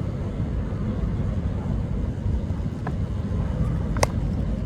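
Steady low rumble of wind on the microphone, with one sharp crack about four seconds in: a cricket bat striking the ball.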